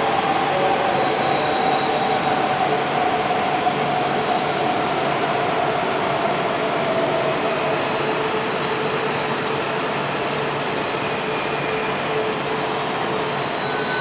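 E7 series Shinkansen train running on the station tracks: a steady rush of wheel and rail noise with a whine that slowly drops in pitch over the first several seconds.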